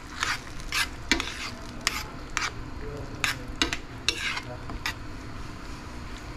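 A spoon stirring simmering tomato sauce in a stainless steel frying pan: short scraping strokes against the pan, about one every half second, over a steady bubbling simmer. The strokes stop about five seconds in, leaving the simmer.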